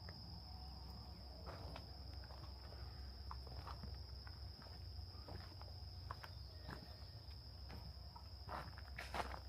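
Faint, irregular footsteps on a woodland trail, over a steady high-pitched insect trill.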